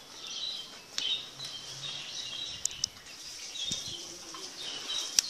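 Small birds chirping over and over, with a few sharp pops from the burning wood fire; the loudest pop comes near the end.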